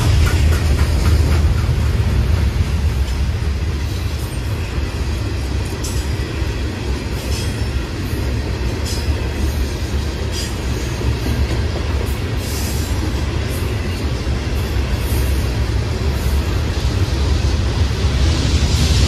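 Freight train of Herzog ballast hopper cars rolling past at close range: a steady low rumble, with quick clicking of wheels over rail joints in the first couple of seconds and a few brief high squeaks from the wheels later on.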